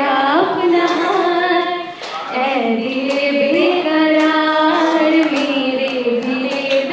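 Women singing a song into microphones, with long held notes that glide up and down in pitch and a brief breath-pause about two seconds in.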